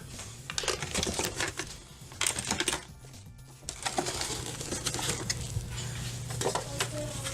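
Plastic aquarium kit parts and packaging being handled: a run of irregular clicks, taps and light rattles, with rustling in the second half.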